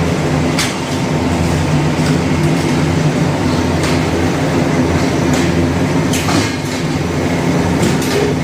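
Automatic corrugated carton folder-gluer running: a loud, steady mechanical drone of motors, belts and rollers, with a few sharp clicks scattered through it.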